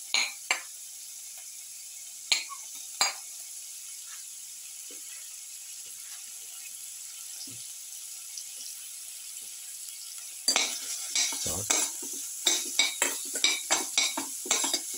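Sliced red onions frying in ghee in a steel pan: a steady sizzle, with a few sharp taps in the first few seconds. From about ten seconds in, a utensil scrapes and clinks against the pan as the onions are stirred.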